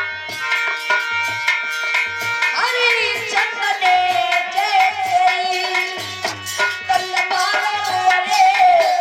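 Indian music with tabla-style hand-drum strokes under a melody of held notes; about three seconds in, a wavering lead line enters and carries on.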